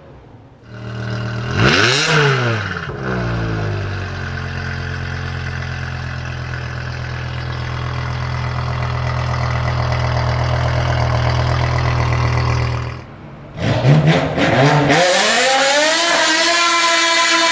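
BMW M5 E60's S85 5.0-litre naturally aspirated V10 comes in with a quick rev that rises and falls back to a steady idle. Near the end the sound dips, blips once, then the pitch climbs and holds at a higher engine speed.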